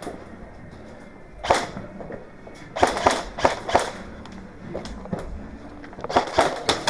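Airsoft guns firing: sharp cracks, one about a second and a half in, then several short strings of quick shots, with the densest group near the end.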